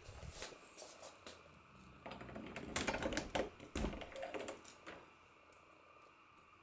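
A man snoring: a rattling snore builds about two seconds in and dies away by about five seconds, with scattered clicks before it.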